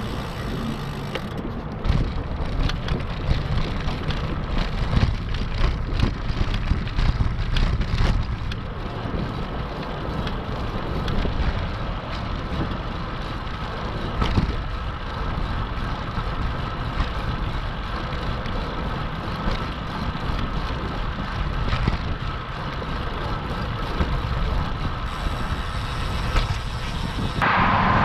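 Wind rushing over the microphone of a camera on a moving road bike, with tyre noise from the pavement and scattered small knocks and rattles. Near the end the sound changes abruptly and gets louder.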